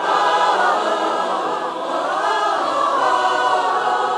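Mixed choir of women's and men's voices singing one long, unbroken phrase that dips and rises in pitch about halfway through.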